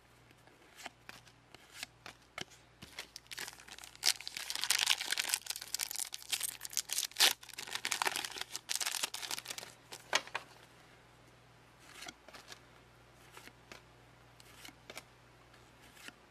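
A trading-card booster pack's foil wrapper being torn open and crinkled, a dense crackling stretch of several seconds starting about four seconds in. Before and after it come faint clicks and rustles of the cards being handled.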